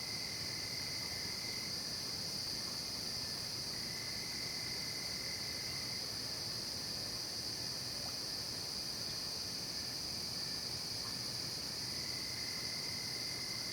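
Night chorus of crickets and other insects: a steady, unbroken high-pitched chirring. A fainter, lower-pitched trill fades in and out three times, lasting a couple of seconds each time.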